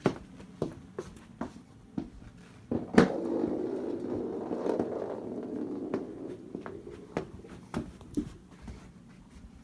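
Footsteps and knocks on a hardwood floor, with a louder knock about three seconds in followed by about three seconds of rumbling scrape that fades out.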